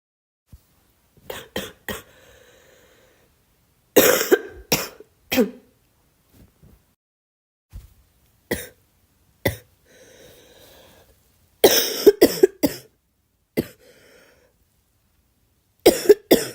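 A girl coughing in repeated short fits of one to four coughs, with quieter breaths between the fits.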